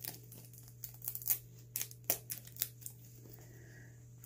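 Plastic seal wrap being picked at and torn off a G Fuel powder tub: irregular crinkling and sharp crackles, the loudest a little after one and two seconds in.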